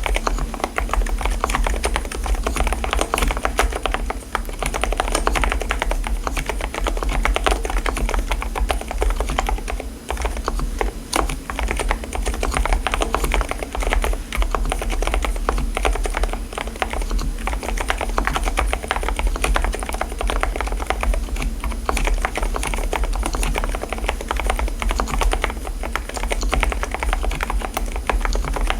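Fast, continuous typing on an Mstone mechanical keyboard fitted with silent switches: a dense run of soft, muted key clicks, over a steady low hum.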